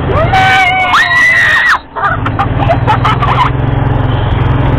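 A high-pitched scream that rises and then holds for about a second and a half, over the steady low hum of a golf cart in motion. The cart's hum carries on after the scream stops, with a few short shouts.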